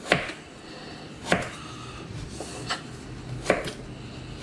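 Knife chopping potatoes on a cutting board: four sharp knocks, roughly one every second or so, the third one lighter.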